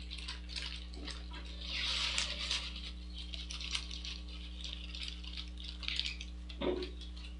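Coarse, gritty bonsai substrate being poured from a plastic bag into a ceramic pot and worked in around the roots. Grains trickle and click against each other and the pot, with a soft knock near the end.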